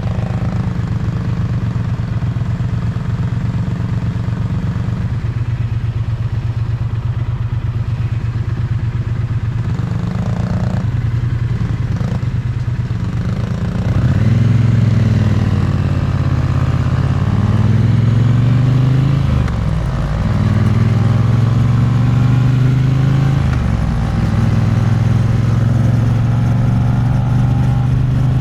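Triumph Bonneville T100's parallel-twin engine and exhaust, heard close up. It runs steadily and low for about fourteen seconds, then gets louder as the bike accelerates, its pitch climbing and dropping back several times through gear changes.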